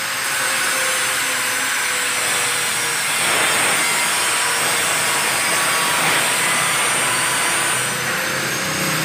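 A machine running steadily with a faint whine, a little louder from about three seconds in.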